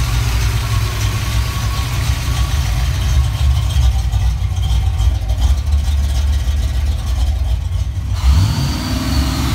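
A 1988 Mustang GT's 5.0-liter (302) small-block Ford V8, running on a newly installed Holley Terminator X fuel injection, idling just after a cold start. About eight seconds in the idle rises on its own and holds at a higher speed: an unprompted surge that the owner puts down to the new system still needing to be tuned.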